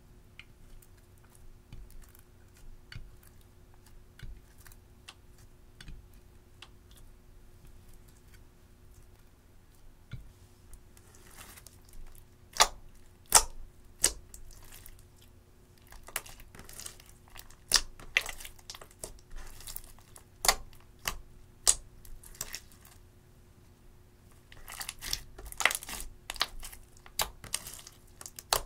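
Clear slime loaded with crushed eyeshadow being poked, stretched and squished by hand, making sharp clicking pops as air pockets burst. It is faint with only small soft clicks for the first ten seconds, then the pops come loud and irregular, with a busier stretch of crackly squishing near the end.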